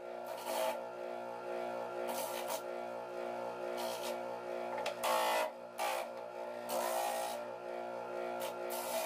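Homemade disc sander driven by a washing-machine motor running with a steady hum, while pieces of wood are pressed against the disc several times in short bursts of scraping, the loudest about five seconds in.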